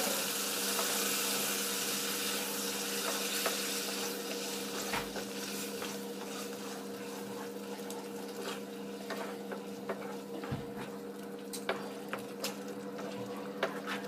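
Grated boiled bottle gourd sizzling in hot spiced masala in a frying pan, stirred with a spatula that clicks and scrapes against the pan; the sizzle eases off gradually. A steady low hum runs underneath.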